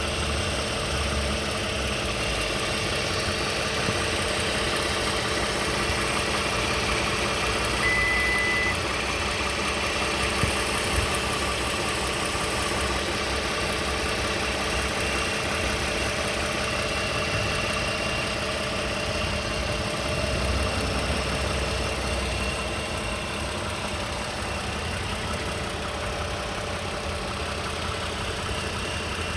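2015 Toyota Sienna SE's 3.5-litre V6 running steadily with a rattle that sounds a bit like a diesel engine; the owner does not know its cause.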